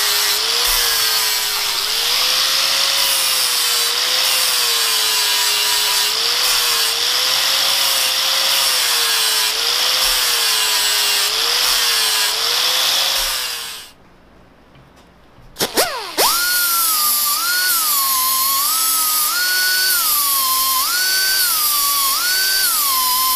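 Angle grinder grinding a cast iron part: its motor pitch sags and recovers as the wheel is pressed into the work, grinding out a crack ready for brazing. It stops about 14 seconds in. After a short lull a higher-pitched die grinder starts, and its whine rises and falls as it bears on the metal.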